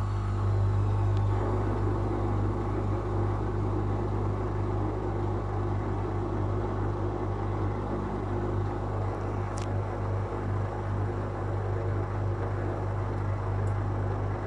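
Whirlpool FL 5065 washing machine with its drum spinning at a steady speed, its motor giving a steady hum with a noisy mechanical rush over it.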